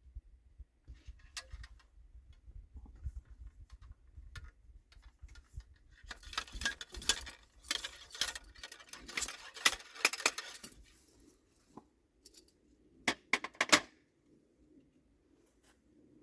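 Small hard objects being handled, rattling and clicking in a dense cluster from about six to eleven seconds in, then a few sharp separate clicks near the end.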